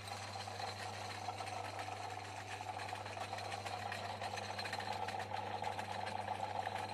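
Portass Model S mk2 mini lathe running under power, a steady electric-motor hum with a whirring whine and a fine continuous rattle from the turning spindle and gear train.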